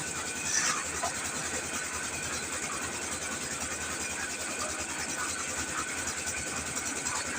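Engine of a mini concrete mixer lift machine running steadily, with a brief louder burst of noise about half a second in.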